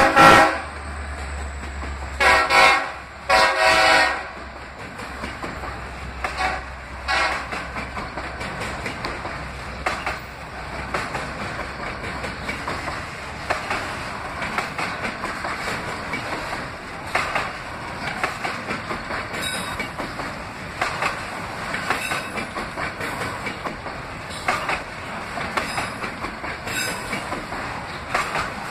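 Freight train of autorack cars rolling past, wheels clicking and knocking over the rail joints. Short locomotive horn blasts sound in the first four seconds, and a low rumble fades out about halfway through.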